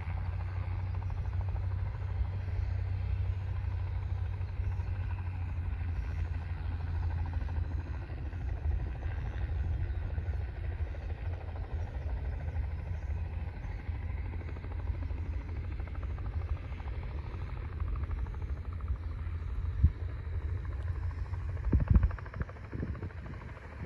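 Helicopter running at a distance: a steady low rumble, with a couple of brief louder thumps near the end.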